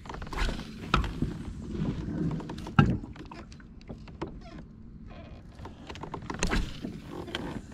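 Handling noise aboard a plastic fishing kayak: fishing rod, reel and gear knocking and clicking against the hull, with a sharp knock about three seconds in and a cluster of knocks near the end.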